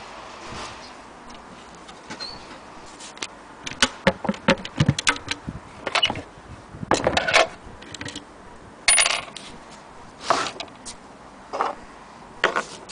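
Antique wooden sewing machine case being handled and shifted about: irregular clicks and knocks with a few short scrapes, coming in clusters over several seconds.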